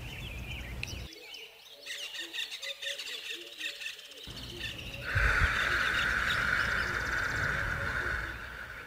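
Nature ambience with small birds chirping, then from about five seconds in a steady high buzzing hiss that fades near the end.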